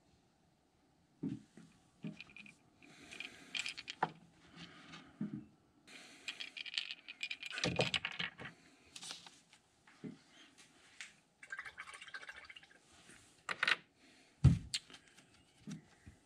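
Handling noises from a crankbait on its bait-holder handle being picked up, turned over and set into a holder stand: scattered clicks, knocks and rustling, with one sharp knock near the end.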